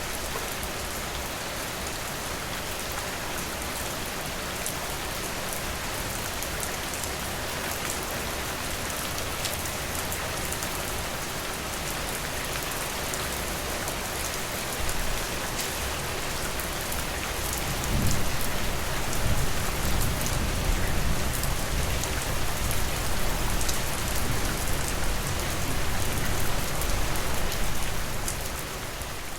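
Steady heavy rain hissing and pattering, joined in the second half by a long low rumble of thunder that rolls on for about ten seconds before fading.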